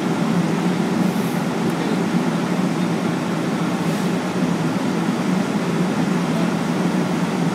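A vehicle engine running steadily: an even, constant low rumble.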